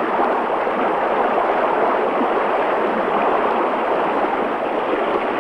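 Torrent of spring floodwater rushing down a rocky channel into a crater: a steady, unbroken rush of white water.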